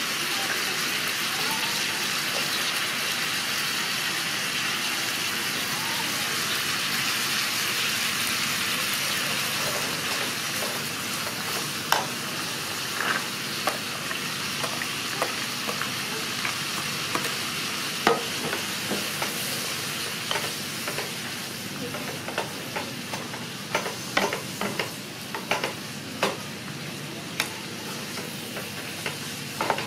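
Minced pork and chopped vegetables sizzling in a frying pan with a steady hiss. A wooden spatula stirs them, its knocks and scrapes against the pan coming more often in the second half.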